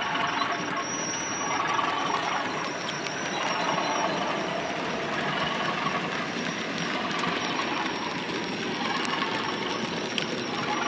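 Model train running on a layout's track: a steady rolling rattle of wheels on rail with small clicks over the joints and a faint high motor whine.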